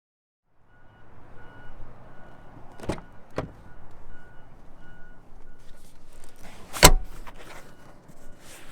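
A car's electronic warning chime repeating in short beeps, with two sharp clicks about three seconds in and a loud thump near seven seconds, typical of a car door being worked and shut.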